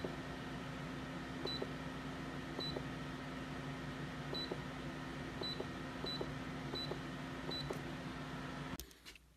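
OutBack Power system display beeping as its soft key is pressed to page back through the battery data log: a short high beep with a light click, about eight times at uneven intervals, over a steady electrical hum. The hum cuts off abruptly near the end.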